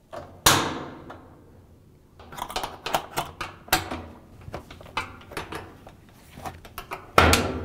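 Metal spring clips on a direct-drive washer's cabinet being hooked onto the back panel and pushed down into place with a flathead screwdriver. There is a sharp metallic snap about half a second in, then a run of small clicks and rattles, and a louder knock near the end.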